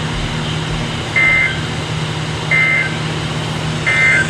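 EAS end-of-message data bursts on a NOAA Weather Radio broadcast: three short, buzzy digital chirps, evenly spaced a little over a second apart, over a steady radio hum and hiss. They signal the end of the severe thunderstorm warning.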